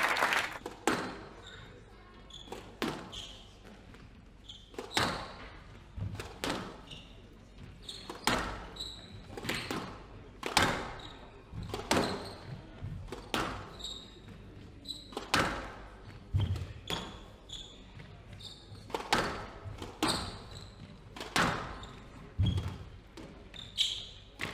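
Squash rally: the ball smacks off rackets and the court walls about once a second, each hit ringing in the hall, with short high squeaks from the players' shoes on the wooden floor between hits.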